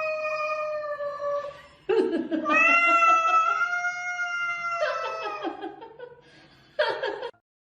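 A cat yowling: two long, drawn-out calls, each held at a steady pitch for a couple of seconds or more, then a few short, rough sounds. The audio cuts off abruptly near the end.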